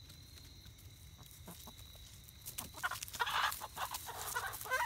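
Buff Orpington chickens squawking and clucking in a short flurry of agitated calls that starts about halfway in, the sound of a squabble within the flock.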